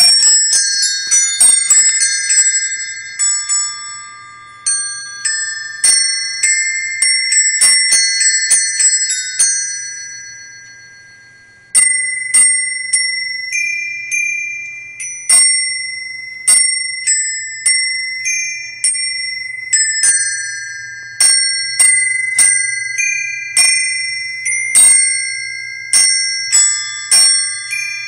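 Wired set of caroling Christmas bells, small metal bells struck one after another to play a carol tune, each note ringing and fading. About ten seconds in the strikes stop and the last notes die away; about twelve seconds in, a new tune starts.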